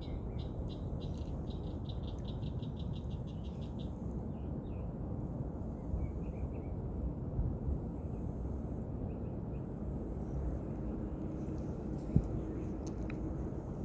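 Insects chirping outdoors: a fast pulsing trill for the first few seconds, with a very high buzz that comes and goes every second or so, over a steady low rumble. A single sharp click about twelve seconds in.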